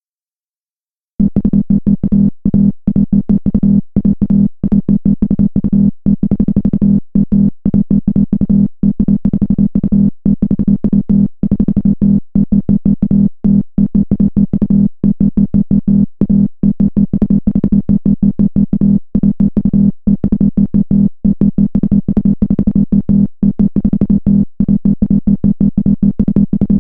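Electronic background music: a synthesizer track with a steady low drone, chopped by frequent short gaps into a stuttering rhythm, starting about a second in.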